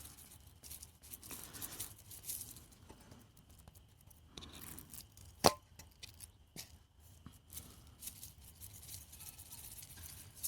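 Faint rustling and tearing of packaging while seasoning is put on pork chops by hand, with scattered small clicks and one sharp click about five and a half seconds in.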